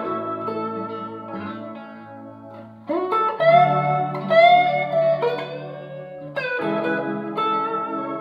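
Telecaster-style electric partcaster played clean through a Fender Excelsior tube amp, a blues phrase. Chords ring out at the start, about three seconds in and again about six and a half seconds in, with bent notes in between.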